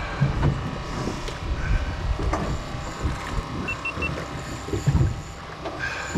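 Small boat rocking at sea: low rumble with water slapping against the hull in irregular low thumps. Three short high beeps about four seconds in.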